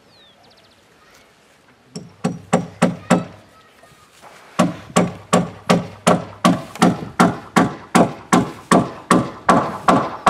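Hammer blows on the wooden planking of a boat hull: a quick run of about five strikes about two seconds in, a short pause, then a steady run of about three strikes a second.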